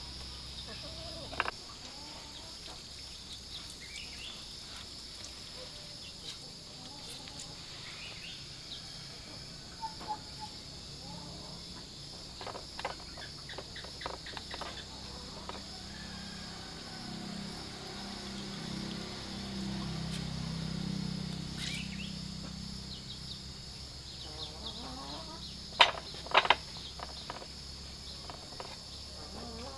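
Rural outdoor ambience: a steady high insect drone with occasional bird chirps, and a few sharp knocks or clicks, the loudest pair near the end.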